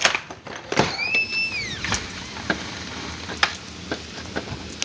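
Heavy rain, a steady hiss with scattered sharp taps and knocks. A thump just under a second in, then a high squeak that rises, holds and falls over about a second.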